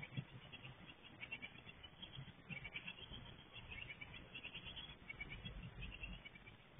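Japanese tit nestlings near fledging age giving faint, rapid high chirps in short runs.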